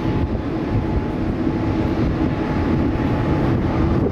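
Jet airliner engines running, a steady loud rumble with a held low hum.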